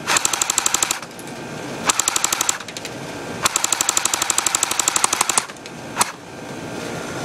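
Electric airsoft AK-47 with a full metal gearbox firing full-auto: a short burst, a second short burst, then a longer burst of about two seconds, at roughly fifteen shots a second, followed by a single shot near the end.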